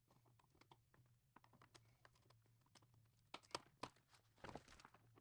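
Faint, rapid clicking, ticking and rattling of hand tools on bolts and underbody fasteners, sped up, with a denser scraping and rattling patch near the end, over a low steady hum.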